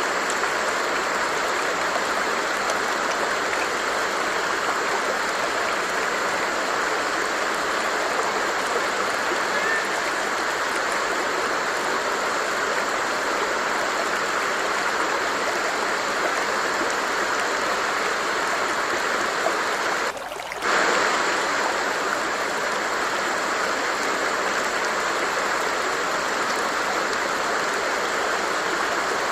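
Stream water flowing and rushing steadily. It briefly dips in level about two-thirds of the way through.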